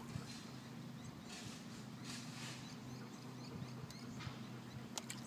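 Faint small splashes of water as fish rise at floating bait, with a few sharp splash sounds around four to five seconds in, over a steady low hum.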